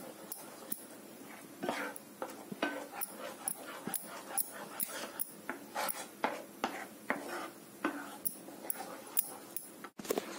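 A wooden spatula stirring thick mango purée in a nonstick pan, making irregular soft squelches and light clicks against the pan.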